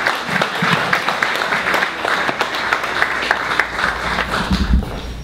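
Audience applauding: many hands clapping, thinning out near the end, with a few low thumps about four and a half seconds in.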